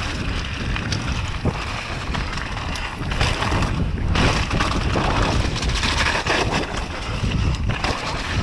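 Mountain bike descending a loose gravel and dirt trail at speed: heavy wind rush on the camera microphone over tyres crunching on stones, with frequent clatters and knocks from the bike.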